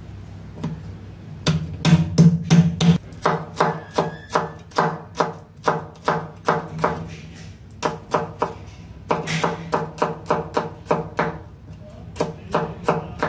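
Broad-bladed kitchen knife chopping garlic cloves on a wooden cutting board: quick, even strokes, about three a second, with a short pause past the middle before the chopping resumes.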